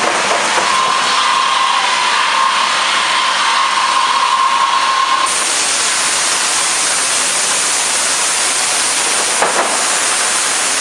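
Industrial band sawmill cutting a log: a loud, steady whir of the band blade through the wood, with a steady whine for the first half. About halfway through the sound changes abruptly, and there is a single short knock near the end.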